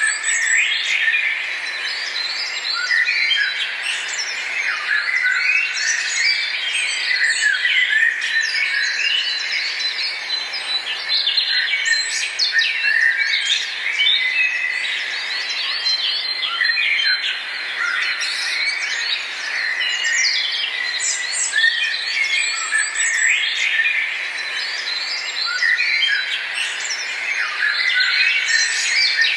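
A dense, steady chorus of many small birds chirping and calling over one another in short, quick notes.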